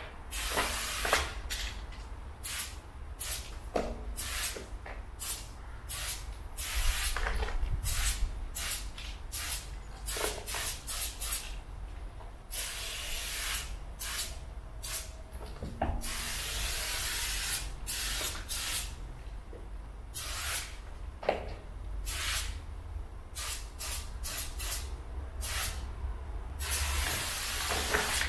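Aerosol spray paint can hissing in many short bursts, with a few longer sprays of two or three seconds around the middle and near the end, over a steady low rumble.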